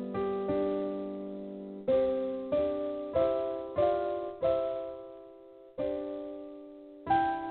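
Background piano music: gentle chords struck every half second or so, each left to ring and fade.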